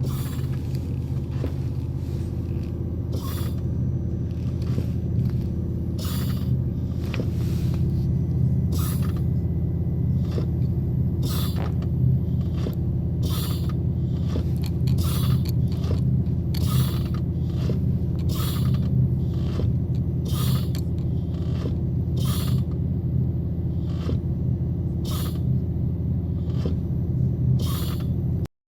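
Ferrari F430's V8 idling steadily while a short hiss sounds again and again, about every one to two seconds, each time the brake pedal is pressed. The owner reports the hiss as an abnormal noise.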